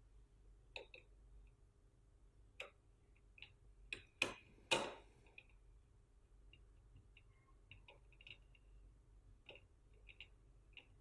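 Scattered small clicks and taps of a DC motor's wire leads being fitted into a motor shield's screw terminal and tightened with a small screwdriver, the sharpest few clicks about four to five seconds in, lighter ticks after.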